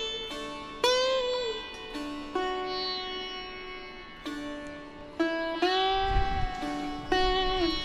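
Background music: a plucked string instrument playing slow single notes, some bending and sliding in pitch.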